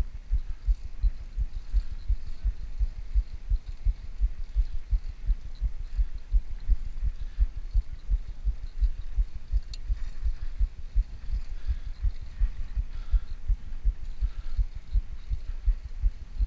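Wind and road rumble buffeting the microphone of a rider-worn GoPro action camera on a moving bicycle: an uneven low rumble of thumps, several a second.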